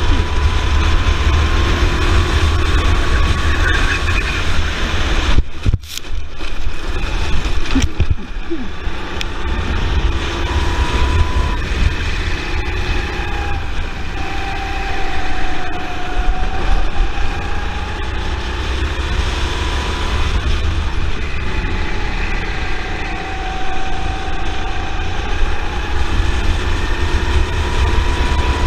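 Go-kart engine heard onboard at racing speed, its pitch dipping as it slows for corners and climbing again as it accelerates out, several times over, with a heavy low rumble of wind and vibration on the microphone. The sound briefly cuts out about five and a half seconds in.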